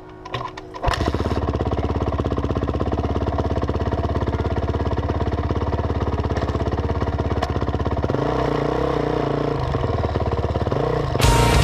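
Honda CRF450X single-cylinder four-stroke dirt bike engine kicked over and catching about a second in, then idling steadily with an even, fast beat. About eight seconds in the note changes as the bike pulls away, and loud music cuts in near the end.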